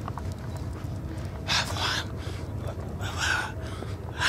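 Hushed, breathy sounds from a person, two bursts about a second and a half apart, over a steady low rumble of wind or handling on the phone's microphone.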